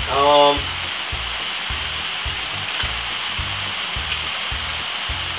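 Minced beef and vegetables sizzling steadily as they fry in a pan, under background music with a low beat about twice a second. A short pitched note sounds right at the start, the loudest moment.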